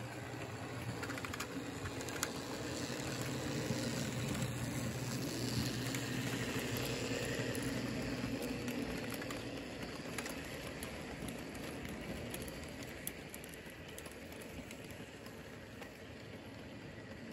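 Märklin HO model freight train of red tipper wagons rolling past on the track, its wheels making a steady rolling clatter with small clicks. It grows louder to a peak a few seconds in, then fades away as the train moves off.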